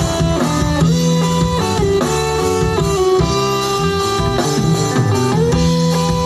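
Instrumental intro of a worship-band song: guitars playing sustained chords with a steady band backing, no vocals yet.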